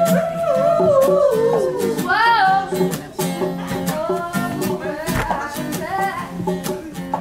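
A woman singing a reggae song over a strummed acoustic guitar, her held notes wavering.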